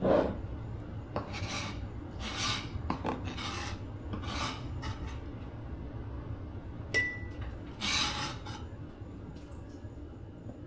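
Several short scraping, rubbing strokes of about half a second each from chopped dill being gathered up and divided into jars, with one sharp click about seven seconds in.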